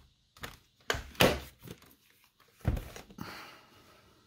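A handful of thunks and knocks as objects are handled and set down on a hard tabletop, the loudest a pair about a second in and another a little before three seconds, followed by a brief softer rustle.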